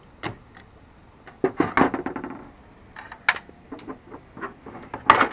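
Small metal L brackets and hardware being handled on a fiberglass dash: irregular clicks, knocks and light clatter, busiest about two seconds in, with a sharp click a little after three seconds and another near the end.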